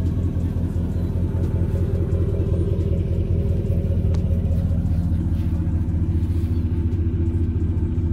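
Chevy Silverado V8 idling steadily through a Flowmaster dual-in, single-out muffler with dual tips, a deep, even exhaust rumble that replaced a straight pipe.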